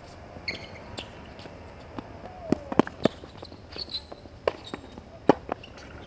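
Tennis balls struck by rackets and bouncing on a hard court during a doubles rally: sharp pops at irregular intervals, a quick cluster of three a little past two and a half seconds in and the loudest about five seconds in.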